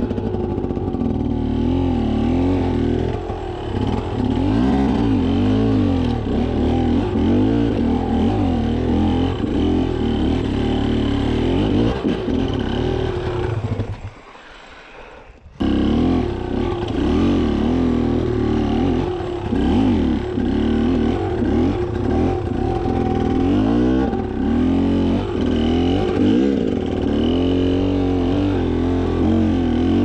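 Beta enduro motorcycle engine revving hard and unevenly under load on a steep rocky climb, the revs rising and falling again and again. About halfway through the sound cuts out for a second or so, then the revving picks up again.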